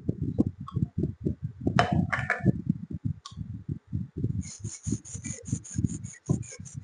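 Steel chisel blade rubbed back and forth on a wet sharpening stone in quick, even strokes, about four or five a second, a higher scratchy sound joining the strokes about two-thirds of the way in.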